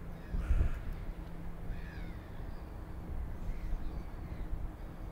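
Birds calling a few times over a low, steady outdoor rumble; the loudest call comes about half a second in.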